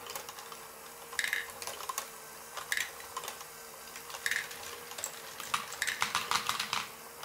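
Lego Great Ball Contraption rocking-platform module running: a small Lego electric motor hums steadily while the mechanism gives a sharp clack about every second and a half. Small plastic balls roll and clatter along the tilting track, with a quick flurry of clicks about six seconds in.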